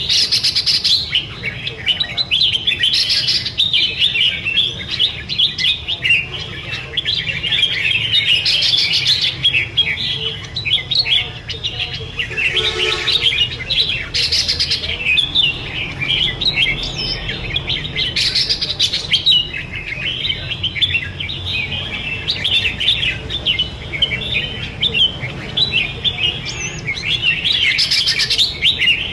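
Two caged red-whiskered bulbuls singing against each other in competition, a dense, unbroken run of rapid, high chirping phrases.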